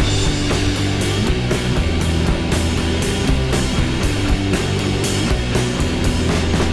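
Rock backing music with distorted guitar, bass and a steady driving drum beat.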